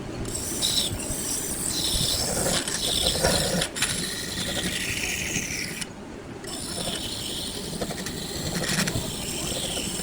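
Wood lathe spinning a wood block while a turning tool cuts against it, giving a rough scraping with high, wavering squeals. The cutting briefly stops a little past halfway, then starts again.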